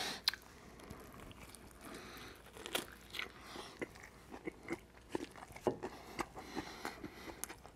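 A man biting into a cheeseburger and chewing it, heard as a string of small, quick mouth clicks.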